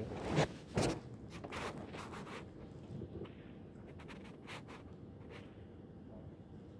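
Handling noise from a recording phone: two knocks in the first second, then faint, scattered rubbing and scraping.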